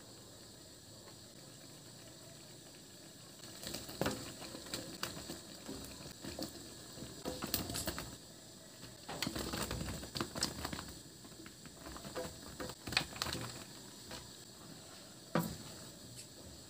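Broth simmering faintly in a steel wok, then chunks of bottle gourd (upo) dropped in with irregular splashes and knocks. Near the end a spatula knocks and scrapes against the wok as the pieces are stirred.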